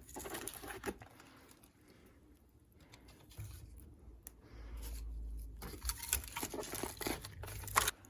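Bursts of rustling and crunching, like dry leaves or loose soil being disturbed, with a brief low rumble about halfway through.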